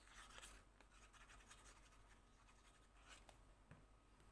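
Near silence with faint scratchy rustling of paper being handled and pressed down, strongest in the first half-second and again about three seconds in, with a few light ticks.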